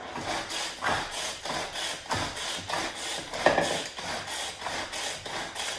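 Hand-operated food chopper worked fast on shredded cabbage coleslaw mix, a quick rasping chop-chop repeated about three times a second.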